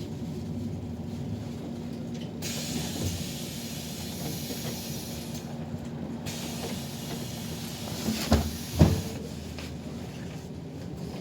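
Inside a city bus: the low rumble of the bus running, a high hiss in two stretches of a few seconds each, and two heavy thumps close together about eight seconds in.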